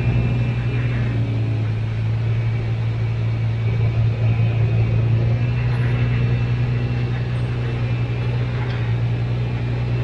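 Jeep Cherokee XJ engine running at steady revs under load as it climbs a steep concrete slab, a loud, even drone.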